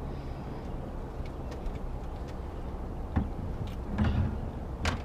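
Steady low rumble with knocks and thumps over it: a sharp knock about three seconds in, a cluster of heavier thumps about a second later, and a few clicks near the end.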